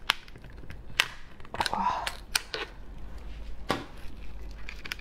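Sharp cracks and snaps of a cooked brown crab's hard shell as it is pried and broken apart by hand. There are about six of them, spaced irregularly.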